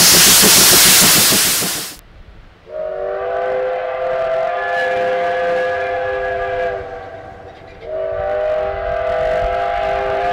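Steam whistle of the C12-class tank locomotive C12 66 sounding a chord of several tones in two long blasts, the first about four seconds and the second about three. Before them, a loud rush of exhaust and cylinder steam with a beat from the passing locomotive cuts off suddenly about two seconds in.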